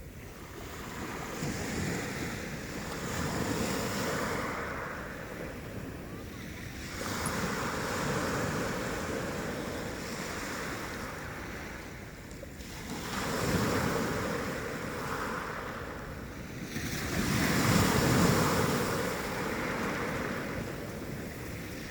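Mediterranean sea waves breaking and washing on the shore, surging and falling back every few seconds, the loudest surge near the end, with some wind on the microphone.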